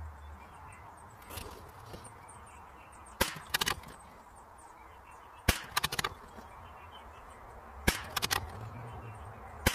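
Savage Mark II .22 LR bolt-action rifle firing RWS Special Match, a string of sharp shots about two and a half seconds apart. Each crack is followed by a quick run of clicks.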